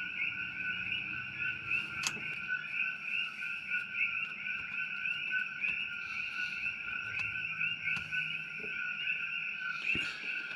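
A steady chorus of fast, pulsing chirps at two high pitches, with a few faint sharp clicks.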